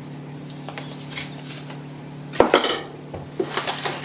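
Metal hand tools clinking and knocking as they are handled and set down during unpacking, in a few short bursts, the loudest about two and a half and three and a half seconds in.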